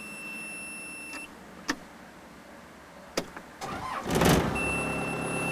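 Caterpillar 246C skid steer being started after running out of fuel and having its fuel system primed: a steady electronic beep sounds for about a second, then a couple of clicks. A little before four seconds in, the diesel engine cranks briefly and catches on the first try, settling into a steady low idle while the beep sounds again.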